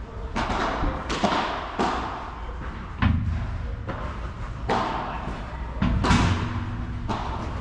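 Padel rally: the ball is struck back and forth with solid padel rackets and bounces on the court, giving about seven sharp hits at uneven gaps of roughly a second, each with a short echo.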